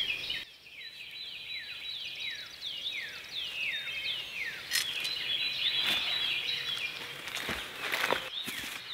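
A songbird singing a long run of quick downward-slurred whistles, repeated over and over, with a thin steady high tone behind it. A few sharp clicks and knocks break in from about five seconds in.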